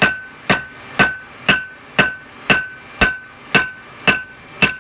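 Hand hammer striking hot steel on an anvil in a steady rhythm, about two blows a second, each blow leaving a short ringing tone.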